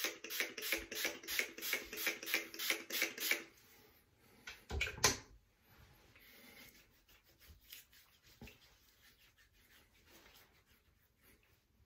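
Rapid rubbing and wiping over the face, about four strokes a second for a few seconds, as leftover shaving lather is wiped away. A brief louder scrape follows about five seconds in, then faint rubbing.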